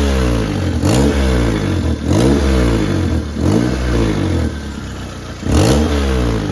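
1997 Toyota Corolla four-cylinder engine blipped repeatedly with an exhaust leak, the pitch rising and falling with each rev and a sharp burst of noise at the start of each one. The owner traces the leak to a failed donut gasket at the exhaust pipe joint.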